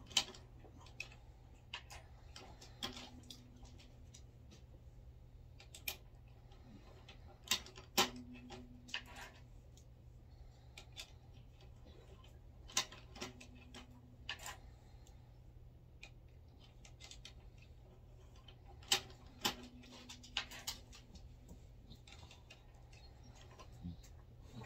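Lee C-press and brass 300 Blackout cases being worked through a Lee flaring die: sharp metallic clicks and clinks of cases and press parts, loudest in clusters about every five seconds, a few of them followed by a brief low drone.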